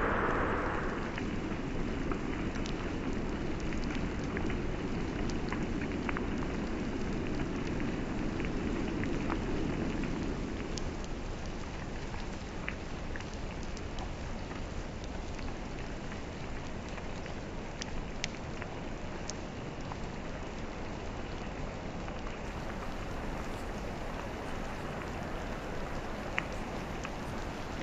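Steady rain falling in a forest: an even hiss with scattered single drops ticking. A lower rumble underneath fades out about ten seconds in.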